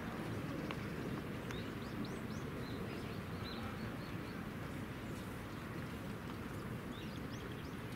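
Open-air ballpark ambience: a steady low background hum with short, high bird chirps scattered through it, a few about two to three seconds in and a couple more near the end.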